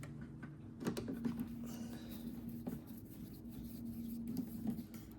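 Faint clicks and light scraping of hands working on a headlight assembly's plastic housing and screws, a few scattered knocks over a steady low hum.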